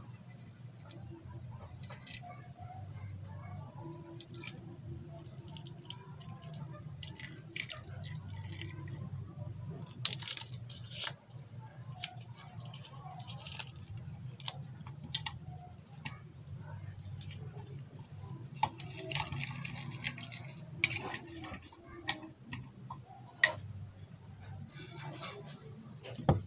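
Hands mixing a marinade in a bowl: liquid poured in, a spoon clicking and scraping against the bowl, and the crinkle of a foil-wrapped seasoning cube being unwrapped, over a steady low hum. Sharp clicks and short rustles come and go throughout.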